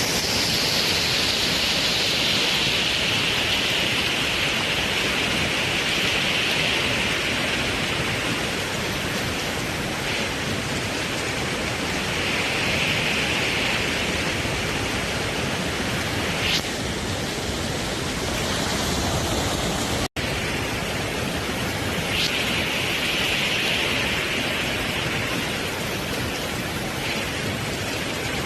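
Steady, loud hiss of storm water: heavy rain and rushing floodwater. About two-thirds of the way in there is a very brief cut in the sound.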